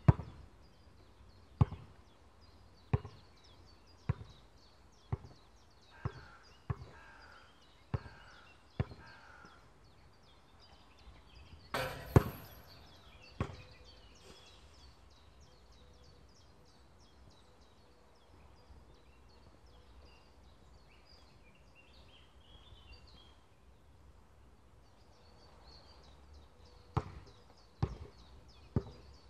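A loose basketball bouncing on an outdoor court, each bounce softer and quicker than the last as it comes to rest. About twelve seconds in there is a louder hit with a ringing tail, then a quiet stretch with birds chirping, and three more bounces near the end.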